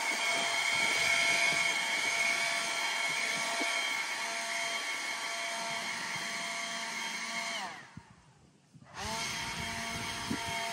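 Cordless electric leaf blower running with a steady whine. About eight seconds in it winds down, falling in pitch, and stops for about a second, then comes back on at full speed.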